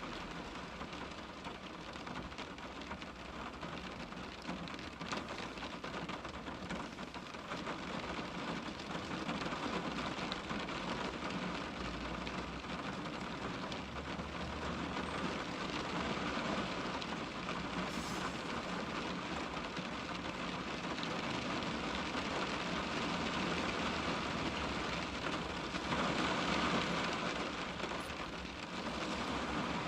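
Steady rain pattering on a car's windscreen, swelling a little louder towards the end.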